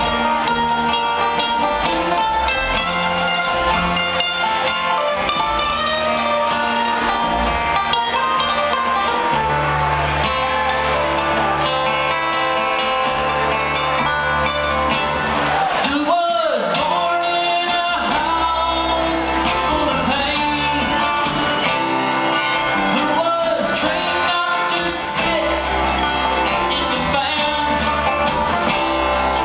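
Live bluegrass string band playing: picked acoustic guitar and other plucked strings over a walking upright bass, with a sliding, wavering note about halfway through.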